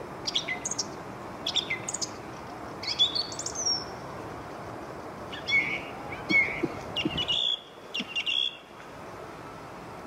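Nightingale singing: about six short phrases of rapid clicks, trills and whistles with brief pauses between them, over a steady low background noise.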